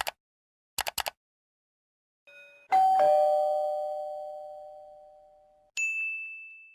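A two-tone ding-dong doorbell chime: a higher note, then a lower one, ringing out and slowly fading, after a few quick clicks. Near the end a single higher ding sounds briefly.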